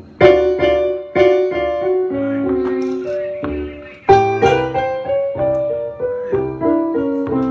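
Blues piano solo on a Yamaha electric stage keyboard: chords and runs struck and left to ring, with two hard accented chords about a quarter second in and again about four seconds in.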